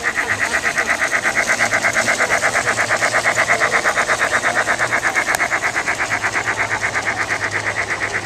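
Model steam locomotive's onboard sound unit chuffing steadily and fast, about eight even chuffs a second, as the engine runs past.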